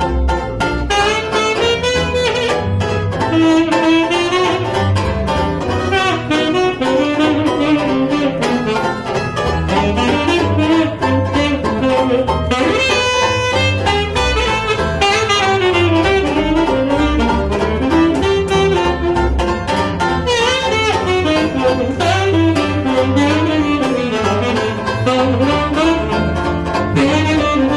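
Live small-group jazz: a tenor saxophone plays the lead line over a plucked double bass and a strummed banjo keeping a steady beat.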